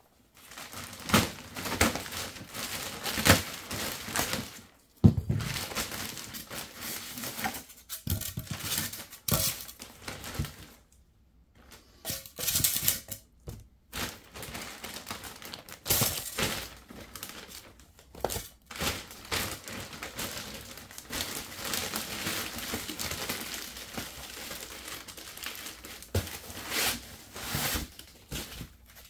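Cardboard and plastic packaging being cut and torn open with a dull throwing knife: irregular crinkling, tearing and scraping with scattered clicks, and a sharp knock about five seconds in.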